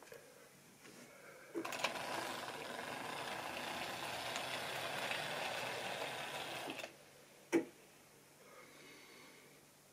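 Model railway train running on the track: a steady mechanical whirr and rattle that starts about one and a half seconds in and stops suddenly about five seconds later. A single sharp click follows.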